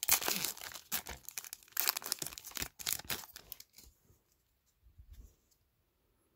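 A trading-card pack wrapper being torn open by hand, with ripping and crinkling for about the first three seconds, then falling quiet as the cards are drawn out.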